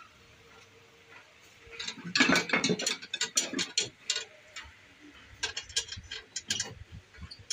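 Rapid clicking and scraping of a metal hand tool worked against a square wooden blank on a wood lathe, in two bursts: one about two seconds in and another near six seconds.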